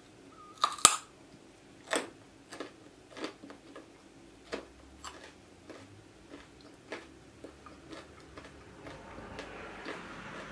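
A raw carrot is bitten off with one loud crunch about a second in. It is then chewed in a run of crunches that grow fainter and further apart.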